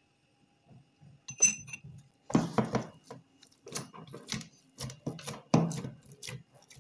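Hands kneading soft, oiled bread dough in a stainless steel bowl: a run of uneven pressing and slapping strokes that starts about two seconds in. A short metallic clink comes just before them.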